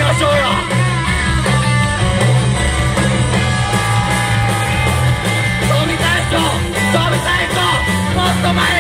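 Rock band playing loud: electric guitar and drum kit, with a singer's voice over them.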